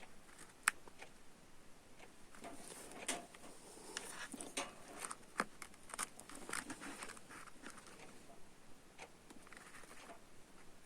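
Faint handling noises as a USB cable and tools are worked by hand: soft rustling with scattered small clicks, a sharper click less than a second in.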